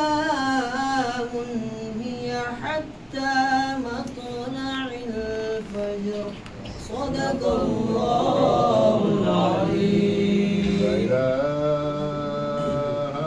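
Men chanting Arabic mawlid verses without accompaniment: a melodic line in short phrases, then many voices together from about halfway, ending on long held notes.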